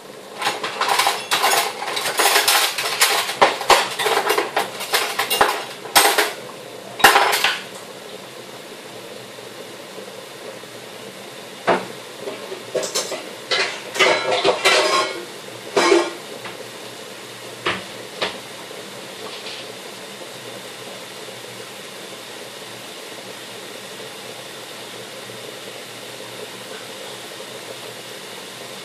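Metal kitchenware clattering and clinking off-screen: a dense run of knocks and scrapes through the first seven seconds, another run about halfway through, then a couple of single clinks, over a steady background hiss.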